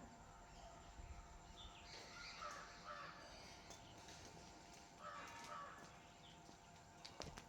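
Faint crow caws: a few harsh calls about two seconds in and another around five seconds in.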